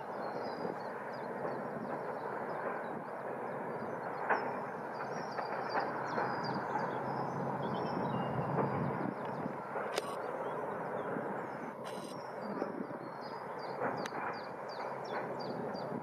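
Outdoor background noise: a steady rushing hiss and rumble, with many short, high chirps over it and a couple of sharp clicks near the middle.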